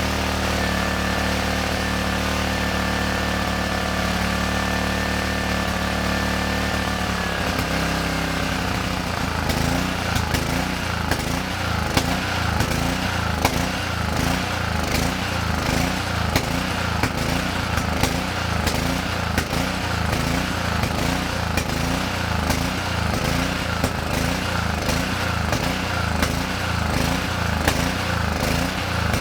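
Honda single-cylinder four-stroke engine of a Kärcher pressure washer running steadily. About seven seconds in, its note drops and it starts to surge up and down in a quick, regular rhythm, with sharp pops here and there: the engine is running rough and hunting.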